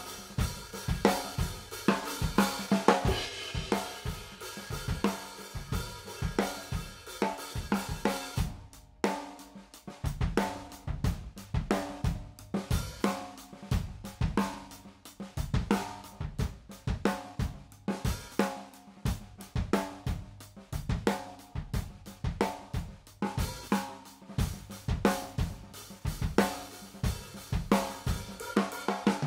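Drum kit recording from overhead and room mics playing a steady groove of kick, snare, hi-hat and cymbals. Partway through it switches from the dry, unprocessed signal to the same drums through a 1176LN FET compressor at 8:1 with medium attack and fast release, with less wash between the hits, and then back to the dry sound.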